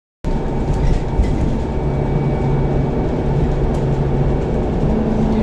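A steady low rumble with a low hum running through it, like a vehicle running, starting abruptly just after the beginning.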